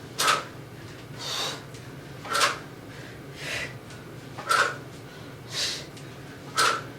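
A person breathing hard and rhythmically through dumbbell thrusters. A sharp, forceful exhale comes about every two seconds, four in all, with a softer, hissing inhale between each pair.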